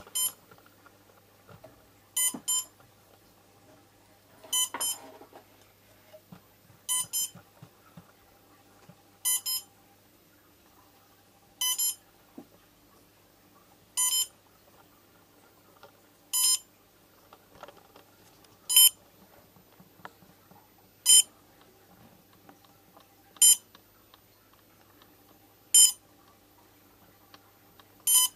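Electronic beeping from the powered-up quadcopter's electronics: short high beeps, mostly in close pairs, repeating steadily about every two and a half seconds.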